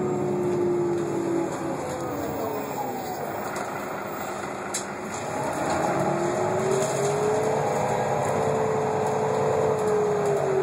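Irisbus Citélis 12 city bus with a Voith automatic gearbox, heard from inside the cabin over a steady drivetrain rumble. A transmission whine sinks in pitch and fades in the first second or two, comes back rising about five seconds in, holds, then falls again near the end, following the bus's speed.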